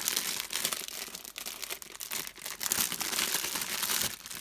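Slimy, stretchy rubber string fidget toy (Monkey Noodle) being stretched and squeezed in the hands, making a dense sticky crackling and crinkling.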